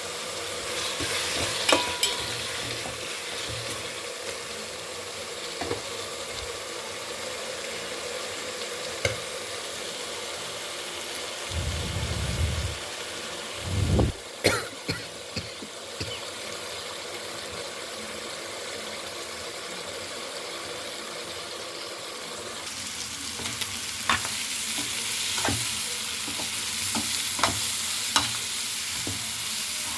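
Food sizzling in hot oil in a pan, with scattered clinks of a utensil stirring it. There is a low thud about halfway through, and the sizzle grows louder in the last third.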